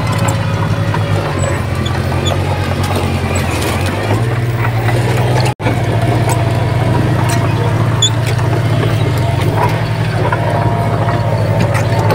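Diesel engine of heavy earthmoving equipment running steadily, its low note shifting a few times. The sound drops out for an instant about halfway through.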